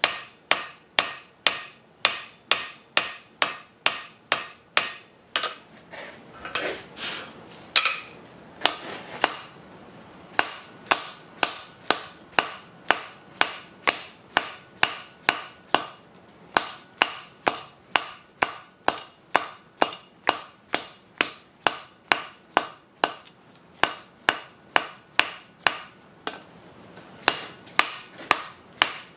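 Hand hammer forging red-hot steel held in tongs on a 200-pound block anvil of three welded 2-inch mild steel plates: steady strikes about two a second, each a sharp clang with a ringing tail. A few seconds in, the strikes break off for several seconds, with some softer knocks, then resume.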